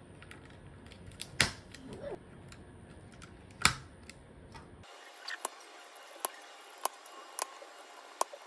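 Scattered sharp plastic clicks and taps from a mechanical keyboard, with two louder knocks in the first four seconds and irregular lighter clicks after.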